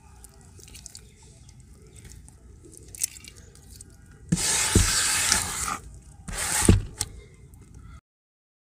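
Hands sloshing in a bucket of grey muddy water from dissolved dirt: faint drips and squelches, then two loud splashing swishes about four and six seconds in.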